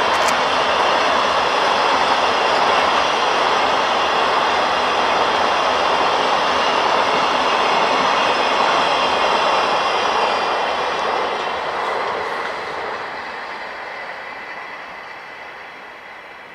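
Freight train passing, a steady rumble of wheels running on the rails that fades away over the last several seconds as the train moves off.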